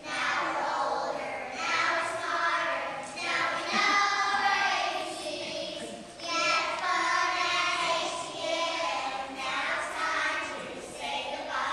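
A group of young children singing a song together, with sustained high-pitched phrases.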